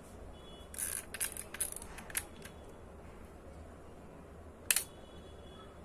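Olympus XA-2 compact camera being worked by hand: a quick run of small mechanical clicks during the first two seconds, then one sharp click, its shutter firing, a little before five seconds in. A faint high whine follows the click.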